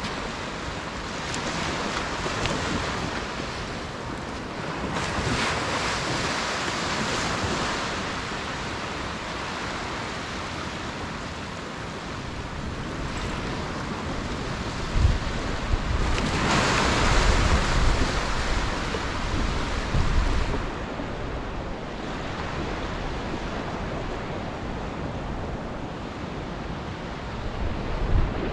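Small waves washing in and breaking on a sandy beach, the hiss swelling and fading several times, with gusts of wind buffeting the microphone; the heaviest gusts come in the middle of the stretch.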